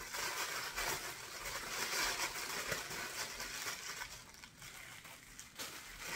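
Thin white wrapping paper rustling and crinkling in irregular crackles as hands unwrap a small packet. It is busiest over the first few seconds and quieter near the end.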